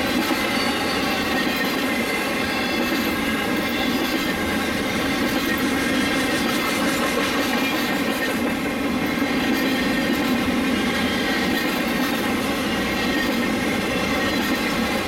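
Intermodal freight train's flatcars, loaded with highway trailers and containers, rolling past: a steady rumble of steel wheels on the rails.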